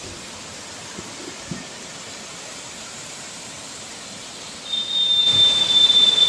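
Waterfall rushing steadily over rocks. Near the end a louder rush comes in with a high, steady whistling tone lasting about a second and a half.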